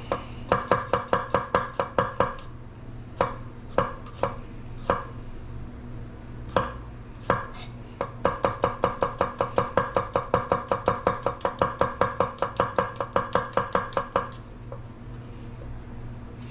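Knife chopping garlic cloves on a wooden cutting board: quick runs of sharp knocks, about five a second, broken by short pauses, with the longest steady run in the second half.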